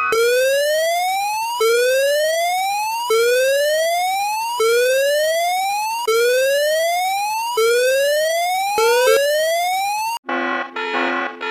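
Emergency-vehicle siren sounding a repeating whoop: a rising sweep that drops back and starts again about every second and a half, seven times over. It cuts off abruptly about ten seconds in, and music with guitar takes over.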